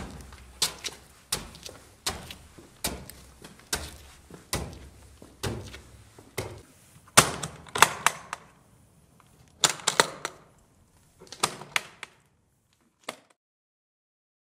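Footsteps on concrete stairs, about one step every 0.8 s. Then a hard-shell guitar case is set down and its metal latches are snapped open in several sharp clicks, the loudest near the middle.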